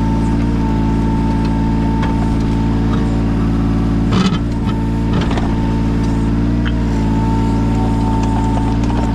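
Yanmar 017 mini excavator's diesel engine running steadily, with a high steady whine above it. Two short knocks come about four and five seconds in.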